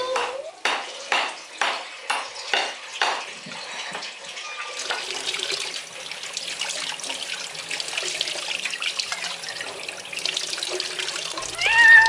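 A run of about seven sharp knocks, roughly two a second, then water running steadily from a tap.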